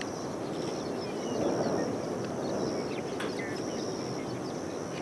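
Wind rushing over the microphone outdoors, swelling briefly about a second and a half in, with birds chirping faintly and a high, broken buzzing in the background.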